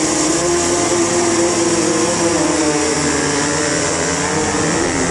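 Several enduro dirt-bike engines running at once, the rider's own KTM closest. A steady engine note holds, then drops about halfway through, and the revs waver up and down as the bikes move off.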